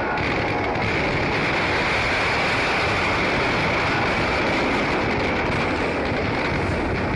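Fireworks packed inside a burning Dussehra effigy going off together: one dense, steady roar of crackling and rushing noise, with no single bang standing out.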